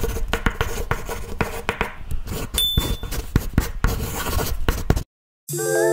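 Pen-scratching writing sound effect, a dense run of irregular scratches and ticks, with a short high click-chime about two and a half seconds in. It cuts off suddenly about five seconds in, and music with held, bell-like mallet notes starts near the end.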